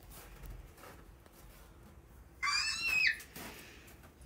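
A child's short, high-pitched squeal, about two and a half seconds in, rising and then falling in pitch.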